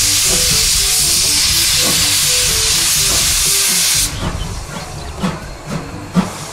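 Full-size steam locomotive venting steam from its cylinder drain cocks: a loud, steady hiss that stops about four seconds in. Quieter, irregular beats follow.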